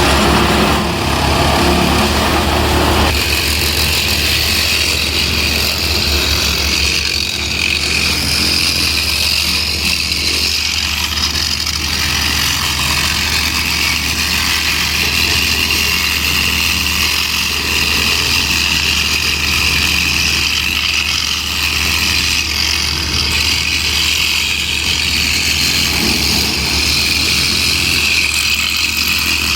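Plasser & Theurer track maintenance machine's diesel engine running steadily, with a steady high whine above the low engine hum.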